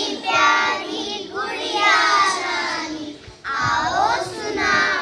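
A group of young children singing a song together in unison, with a short break about three seconds in.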